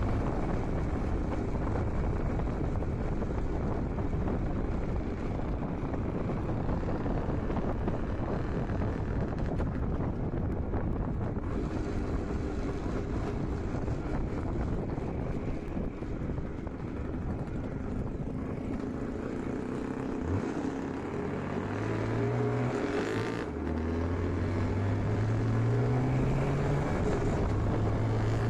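IZh Jupiter-5 two-stroke twin motorcycle engine running on the move, mixed with wind rush. About two-thirds of the way through, the engine note rises in steps, drops once and climbs again, then holds steady: the bike accelerating through its gears. The owner says this engine runs with a knock and a ringing.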